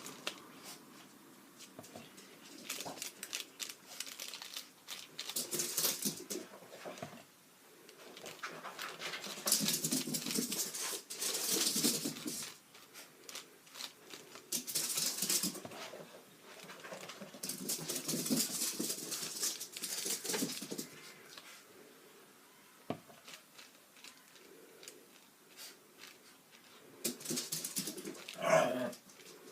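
Pet dogs having a crazy moment, playing noisily in bursts of a few seconds with quieter stretches in between.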